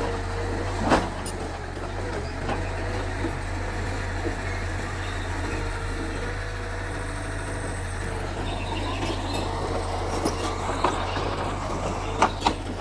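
Mitsubishi bulldozer's diesel engine running steadily under work, with a few sharp metallic knocks: one about a second in and a pair near the end.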